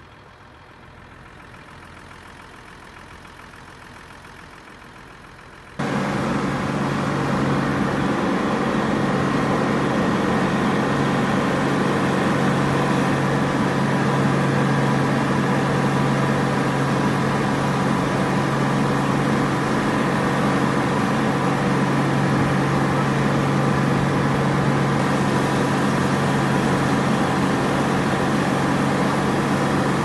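A motor vehicle's engine running at a steady speed, with a constant low hum. The hum cuts in abruptly about six seconds in, after a few seconds of faint background.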